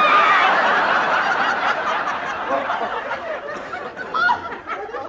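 Studio audience laughing, loudest at the start and fading over about four seconds, with a woman's short shriek at the very start.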